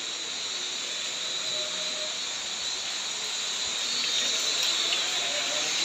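Steady hiss of falling rain, growing slightly louder over the last couple of seconds.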